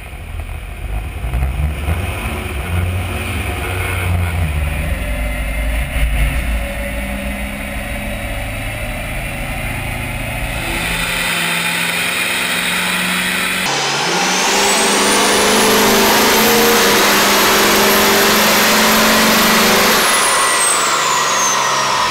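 Ford 6.7 L Power Stroke V8 turbo-diesel pickup running on a chassis dyno. After a low engine rumble, it goes into a full-throttle pull about halfway through: a high turbo whine rises, holds for about six seconds, then falls away as the pull ends.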